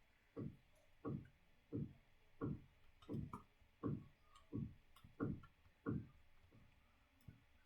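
Typing on a Prodot keyboard: a steady run of dull key thuds about one and a half a second, with fainter sharp clicks between them, tailing off near the end.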